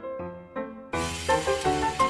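Background music of quick melodic, keyboard-like notes. About a second in, it swells into a fuller, brighter passage with a hissing wash over it.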